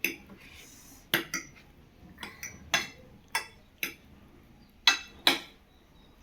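Cutlery clinking against plates in sharp, irregular strikes, about nine in all, as several people start eating noodles from their plates; the two loudest come close together near the end.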